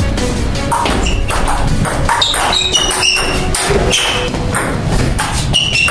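Table tennis rally: the celluloid ball knocking off rubber-faced paddles and bouncing on the table again and again, over steady background music.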